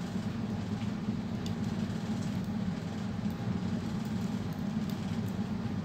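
Steady low background hum, with a few faint light ticks.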